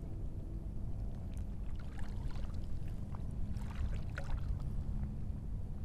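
Steady low rumble of wind and shallow water around a wading angler, with a faint steady hum and a few light splashes or clicks near the middle.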